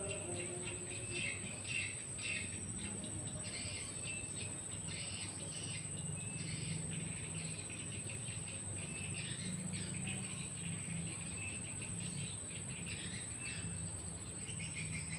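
Outdoor ambience of insects keeping up a steady high-pitched whine, with short chirps repeating every second or so over a low steady hum.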